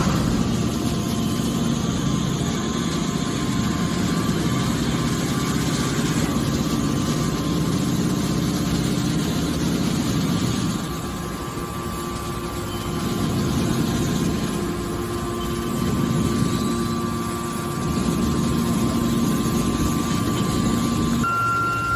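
Hydraulic can baler running: a steady mechanical hum from its motor and pump. The level drops slightly for a couple of seconds about halfway through.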